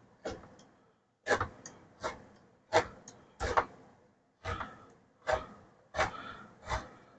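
Knocks and scrapes against a tin can, about one every half second to a second, as a 28-ounce can of crushed tomatoes is emptied into the chili pot.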